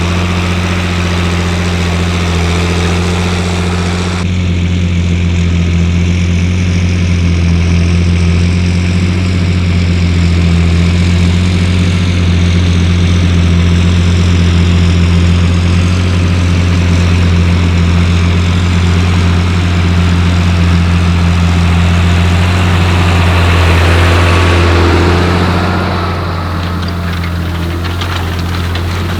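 John Deere 8300 tractor's six-cylinder diesel engine running steadily with a deep hum while pulling a plough. The sound changes abruptly about four seconds in and eases a little near the end.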